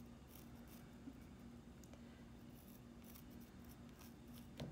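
Faint scratching of a white colored pencil sketching on a painted stone, in short strokes over a low steady hum.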